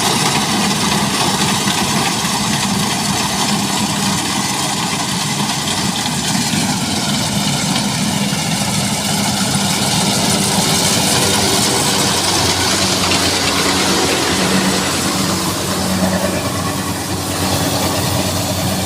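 Rice combine harvester running steadily at work, its diesel engine droning with a note that sags slightly around the middle and then picks up again.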